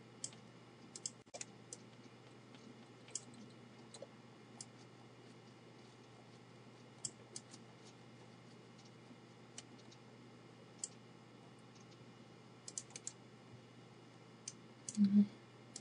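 Computer mouse button clicking, with sharp single clicks at irregular intervals over a faint steady hum. A brief low-pitched sound comes near the end.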